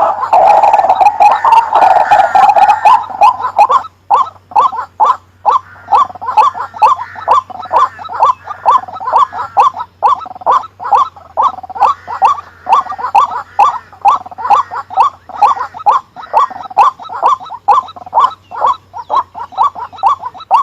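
White-breasted waterhen calling: a long, monotonous run of short croaking notes, about three a second. For the first four seconds the calls overlap densely.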